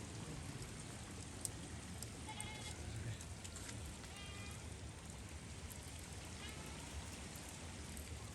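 Three short animal bleats, typical of sheep or goats, spaced about two seconds apart over a steady hiss.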